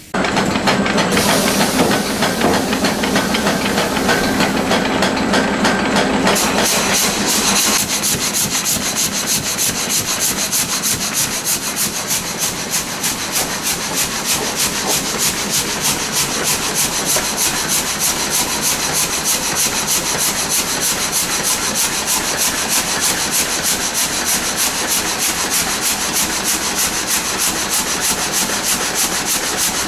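Rhythmic rubbing and scraping on wood, fast regular strokes. The sound changes character about six seconds in.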